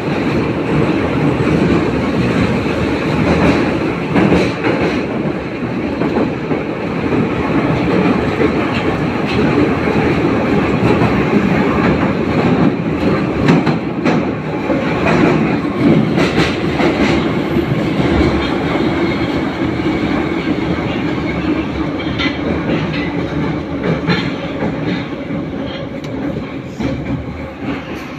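Metro train of the 81-717/714 'номерной' type running between stations, heard from inside the car: a loud, steady rumble with scattered clicks of the wheels over the rail, easing slightly near the end.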